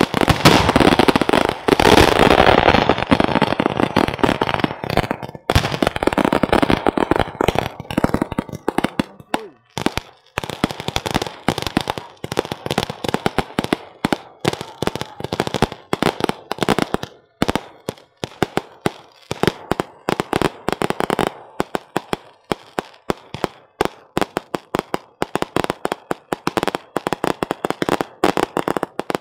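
A string of firecrackers hanging beneath a giant hot-air balloon going off. It starts as a dense, rapid crackle for the first few seconds, then thins to a fast run of separate sharp bangs, several a second.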